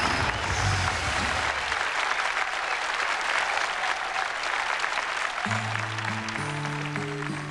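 Studio audience applauding as the introductory music fades out. About five and a half seconds in, the song's opening instrumental notes start over the applause.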